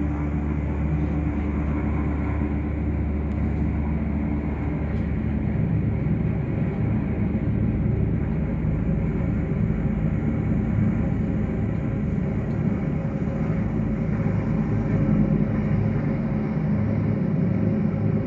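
Medical helicopter's rotors and turbine engines running loud and steady as it lifts off and climbs away, a deep rumble throughout.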